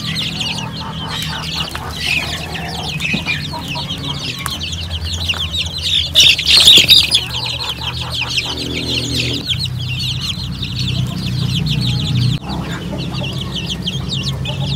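A flock of young native chicks peeping nonstop, many short falling peeps overlapping, swelling louder for a moment about six seconds in, over a low steady hum.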